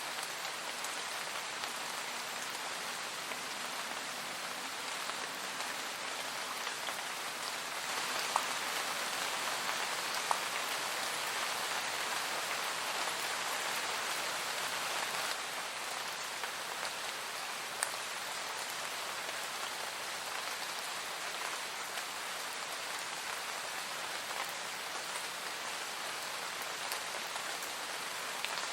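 Steady, calm rain falling, with a few single drops ticking sharply. It grows slightly heavier a third of the way in and eases back about halfway through.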